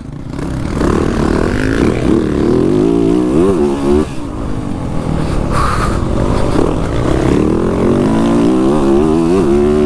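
Motocross bike engine revving up and down as the bike is ridden, its pitch rising and falling again and again, with a short dip in revs about four seconds in.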